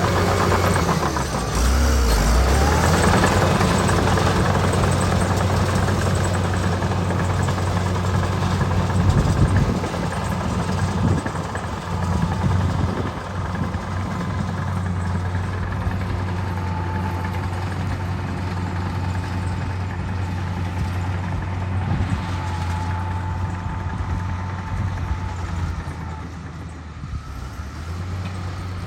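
Diesel engine of heavy road-construction machinery running steadily at a low drone, with a few clunks about ten seconds in.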